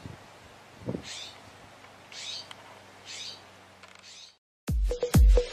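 A bird calling, a short high call repeated about once a second, four times. Near the end the calls stop and loud electronic dance music with a heavy beat comes in.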